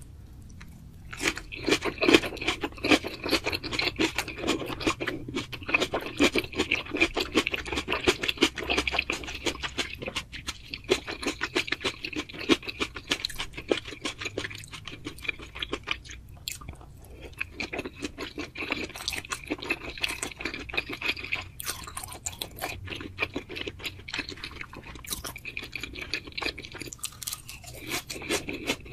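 Close-miked chewing of food, a dense run of rapid clicks starting about a second in, with a few short pauses.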